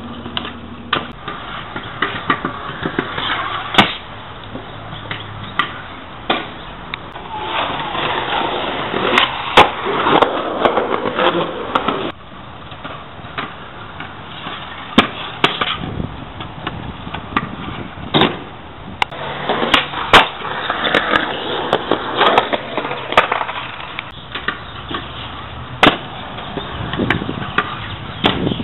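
Stunt scooter wheels rolling on concrete, with many sharp clacks and bangs as the deck and wheels hit the pavement on tricks and landings.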